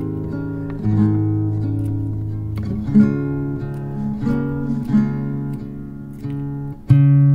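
Slow acoustic guitar background music, with chords struck every second or two and left to ring.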